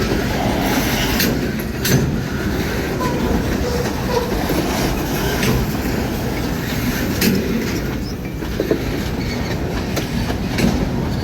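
Railroad freight train rolling past, its wheels clicking over rail joints at irregular intervals, with a brief wheel squeal a little past the middle.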